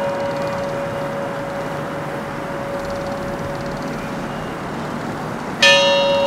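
A bell-like tone struck once and left ringing, fading slowly, then struck again near the end, with a steady noisy hiss underneath.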